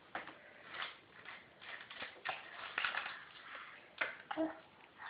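Irregular clicks and jangles of a set of keys being shaken and knocked about by a baby, with a brief baby grunt about four seconds in.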